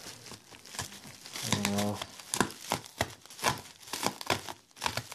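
Bubble wrap crinkling and crackling in irregular bursts as it is cut and pulled open with a knife. A short hummed voice comes about a second and a half in.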